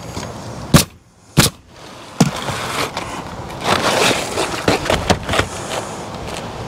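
Two sharp shots from a pneumatic coil roofing nailer about half a second apart, driving nails through asphalt shingles. After that comes the scraping and rustling of gritty asphalt shingles being slid and pressed into place on the roof, with small clicks.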